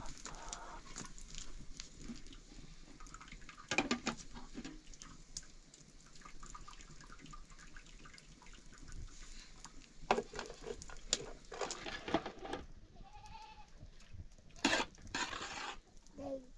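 A goat bleats once, about 13 seconds in, among scattered clicks, knocks and short noisy bursts.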